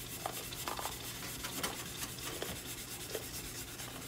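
Sponge scrubbing a fire-blackened stainless steel coffee pot with Bar Keepers Friend cleanser: a fast, even, scratchy rubbing of back-and-forth strokes.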